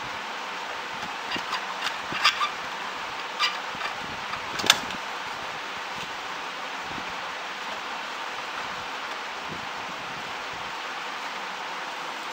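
A run of short, sharp plastic clicks and taps from about a second in until just under five seconds, the last one the loudest, as the printer's plastic print-head carriage and frame are handled, over a steady hiss.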